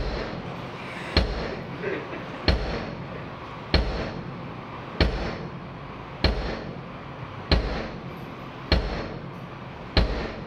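Bass drum of a drum kit struck singly and evenly, about once every second and a quarter, each hit a deep boom with a sharp beater click, loud in the room: a drum soundcheck.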